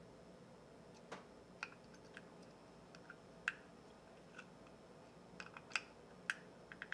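Light scattered clicks and taps from handling a compact folding wrench multitool: a few single clicks, then a quicker run of clicks near the end as its implements are moved.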